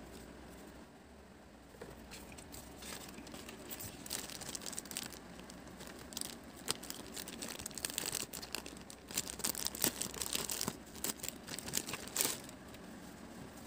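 Clear plastic wrapping crinkling and rustling as hands open it and pull out the item inside: light crackles at first, getting denser and louder in the second half, then stopping shortly before the end.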